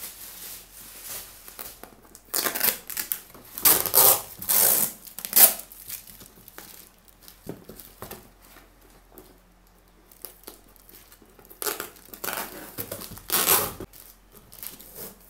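A cardboard parcel box being torn open by hand: the tape and flaps rip in two bouts of noisy tearing, the first about two seconds in and the second around twelve seconds in, with quieter rustling of cardboard between them.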